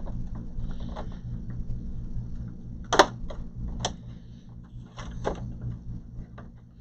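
Plastic clips of an all-in-one PC's rear cover clicking and snapping loose as a plastic pry tool is worked along the seam, with a sharp snap about three seconds in and another just before four seconds.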